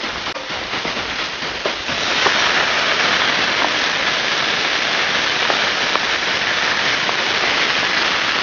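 Chopped onion sizzling in olive oil in a hot pan. About two seconds in the sizzle grows louder and stays steady as tomato sauce is poured onto the hot pan.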